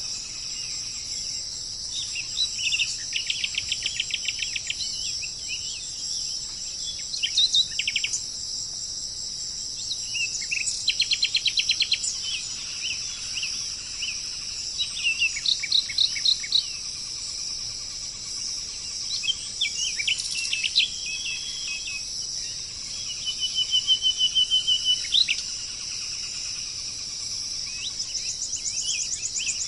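Wild birds calling in short bursts of rapid trills and chirps every few seconds, over a steady high-pitched drone of insects such as crickets.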